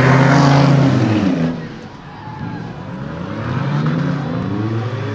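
Race car engines running hard on a dirt track. One car passes and falls away in pitch about a second in, then engines rise and fall in pitch again as cars accelerate and lift through the second half.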